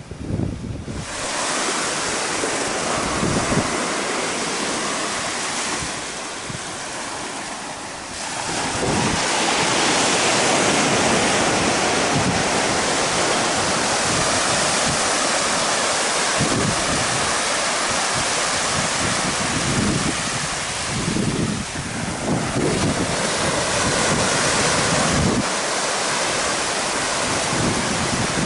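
Small ocean waves breaking and washing up a flat sand beach, a steady hiss of surf that grows louder about eight seconds in. Wind buffets the microphone in irregular low gusts.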